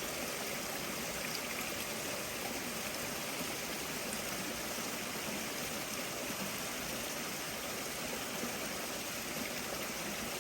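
Running water: a steady, even rush of mountain creek water flowing through the pool area.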